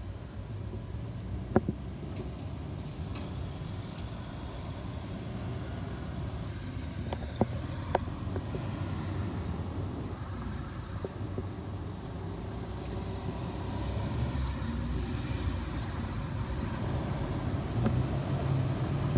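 Road traffic: cars driving over a railway level crossing, a steady engine and tyre rumble with a few sharp knocks, growing louder near the end as a car passes close.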